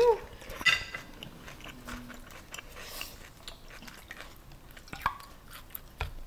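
Close-miked eating sounds: a short slurp of pho rice noodles right at the start, then quiet chewing with scattered small wet mouth clicks and crackles.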